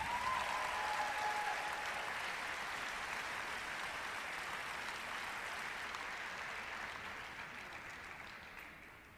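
Audience applauding, the clapping dying away over the last two seconds.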